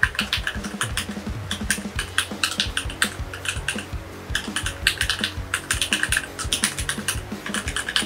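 Fast typing on a Keychron K8 mechanical keyboard fitted with brown switches: a rapid, irregular clatter of keystrokes with a short pause about four seconds in.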